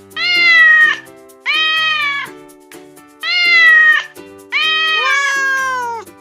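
Domestic cat meowing four times, each meow about a second long and the last a little longer, over steady background music.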